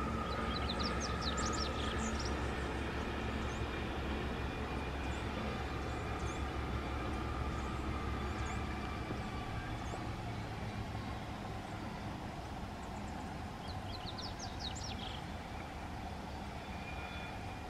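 Freight train passing: diesel-electric locomotives running with a steady low rumble that slowly fades as the loaded ore wagons roll by. Short bird chirps come about a second in and again near the end.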